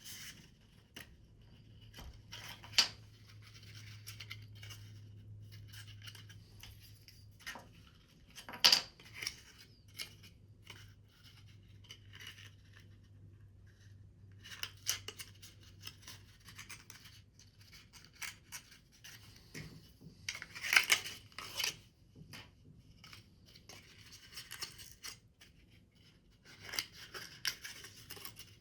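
Scissors cutting paper, with rustling between strokes and a few sharp snips about 3, 9 and 21 seconds in.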